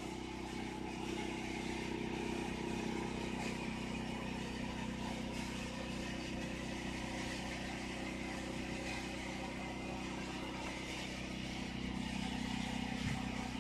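Generator running at a steady speed, a constant engine hum.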